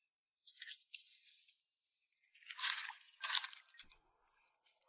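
Digging for clams in wet beach sand: four short gritty scrapes and crunches, about a second apart.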